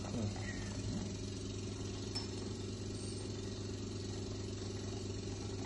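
Electric suction pump of an ENT aspirator running with a steady hum, the vacuum source for drawing fluid out of the nasal sinuses.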